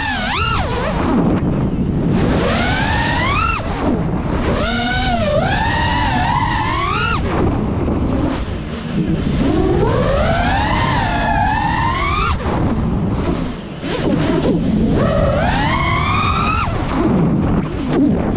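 5-inch FPV quadcopter's brushless motors and propellers whining, the pitch sweeping up and down again and again as the throttle is punched and cut through flips and dives, over a rushing wind noise.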